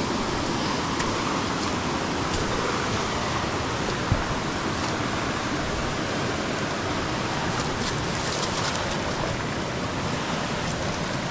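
Steady rushing of a rocky stream's flowing water, with a brief knock about four seconds in.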